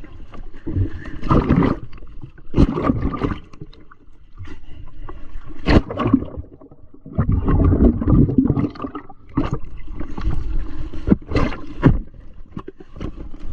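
Water sloshing and splashing in irregular loud surges, coming and going every second or two.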